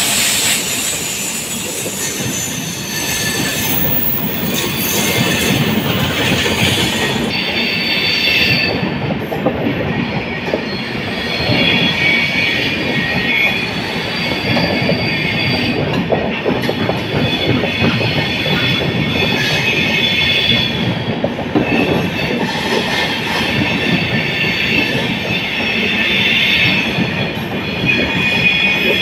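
Passenger express coaches rolling past as the train turns into a station loop line. The wheels give a high-pitched squeal that comes and goes, over a steady rumble and clatter of wheels on rail joints and points.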